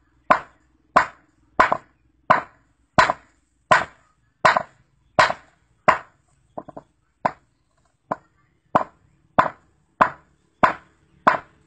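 Claw hammer striking a rough stone resting on a concrete slab, one sharp crack after another, about one and a half blows a second. About two-thirds of the way through there are a few lighter taps, then the full blows resume.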